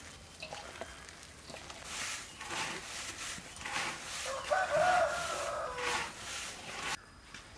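Dry breadcrumbs rustling and crunching as hands scoop and squeeze them, in a run of soft scrunches. About four and a half seconds in, a chicken calls briefly over them.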